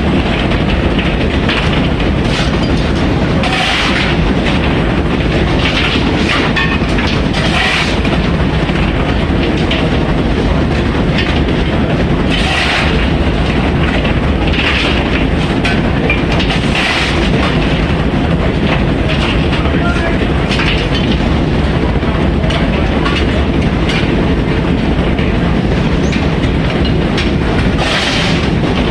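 Loud, steady machinery din in the boiler room of the coal-fired steamship TSS Earnslaw, with short, sharper sounds breaking through every second or two.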